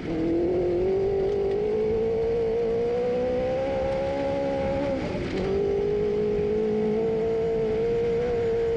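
Cross kart (mini buggy) engine running under throttle. Its pitch climbs over the first few seconds, dips briefly about five seconds in, then picks up again and holds fairly steady.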